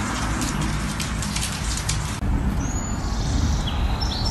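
Steady low rumble with scattered sharp clicks, then outdoor noise with a low rumble and a short run of quick bird chirps near the end.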